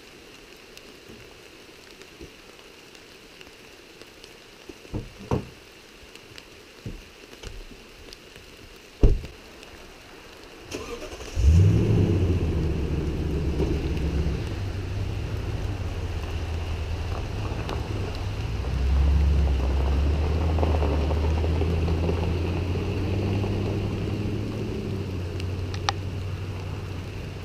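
Steady rain with a few knocks and a sharp door slam, then a full-size pickup truck's engine starting about eleven seconds in and running steadily, getting a little louder about halfway through as the truck pulls away.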